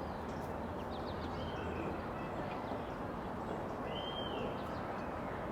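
Outdoor background: a steady low noise with faint bird chirps, the clearest a single arched call about four seconds in.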